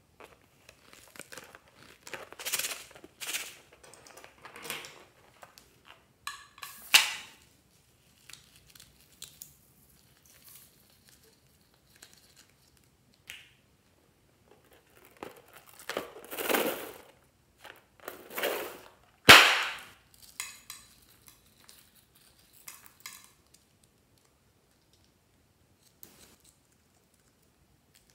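A filled rubber balloon being handled, snipped open and emptied of its green glitter into a glass tray: bouts of crinkling and rustling, with a loud sharp snap a little past the middle.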